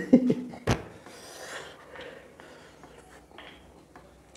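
Close-miked eating sounds: a sharp crunch under a second in, then quieter chewing and rustling of food.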